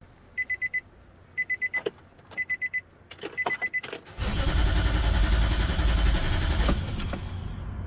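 Nissan NV van's dashboard chime beeping in four quick groups, then the starter cranking the engine for about two and a half seconds without it catching: a no-start with no fuel pressure, which the owner puts down to a failed fuel pump.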